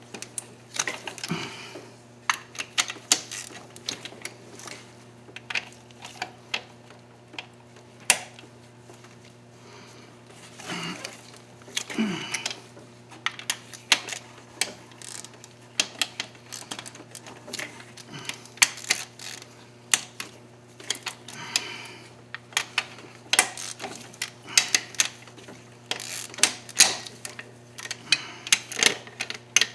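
Hand socket ratchet clicking in quick bursts as bolts are turned, with scattered metal tool clinks over a steady low hum.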